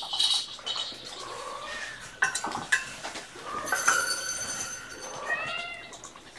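Kittens mewing: short, high, arching calls, a few times over, with several sharp clicks and knocks in between.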